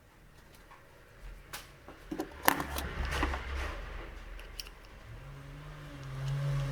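Quick sharp clicks and light scraping, as of small hard parts being handled, with the loudest click about two and a half seconds in. A low steady hum comes in about five seconds in.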